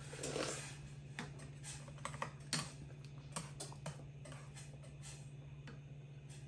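Chopsticks and a spoon clicking against a ceramic soup bowl as noodle soup is eaten: a scatter of light clicks and taps, busiest in the first half, one sharper tap about two and a half seconds in.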